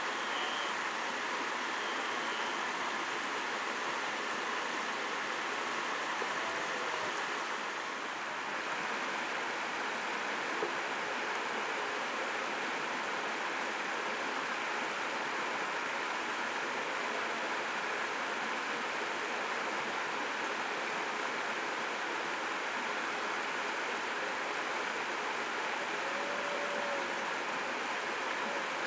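Steady, even rushing background noise, with a few faint short chirps; no stag roar stands out.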